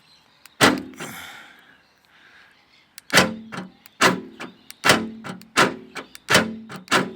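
Car door lock mechanism clunking as the newly remade lock rod is worked: one knock early on, then a regular run of about six clunks some three-quarters of a second apart.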